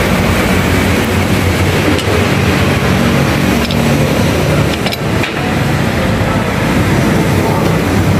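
Steady loud hum and hiss of running machinery, with a few faint clicks about halfway through.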